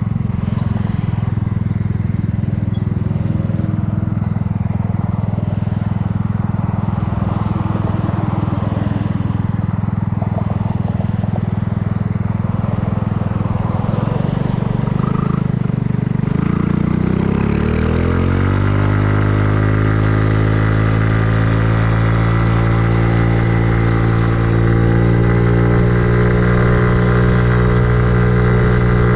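Kymco People 250 scooter's single-cylinder four-stroke engine running under way, its exhaust leaks patched with high-heat epoxy. It holds a steady speed, then accelerates about two-thirds of the way through, the pitch rising over a few seconds before holding steady at a higher speed.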